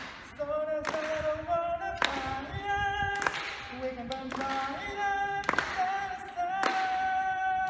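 A young man singing unaccompanied, holding long notes that step from pitch to pitch, with a few sharp clicks cutting in.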